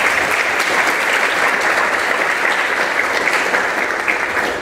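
Lecture-hall audience applauding steadily after the talk ends, the clapping thinning out near the end.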